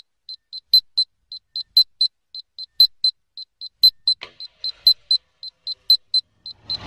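Electronic beeping, short high beeps about four a second with a louder one each second, typical of a model rocket's armed altimeter on the pad. Near the end a rushing hiss starts and grows as the motor lights.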